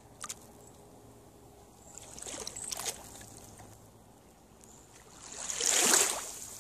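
Small waves washing in on the Lake Superior shore: two swelling rushes of water, the second and louder one near the end.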